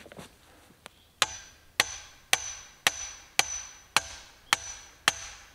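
Sledgehammer striking the steel drive cap on a sand point well pipe: eight ringing metallic blows, about two a second, starting about a second in, driving the well point down into the ground.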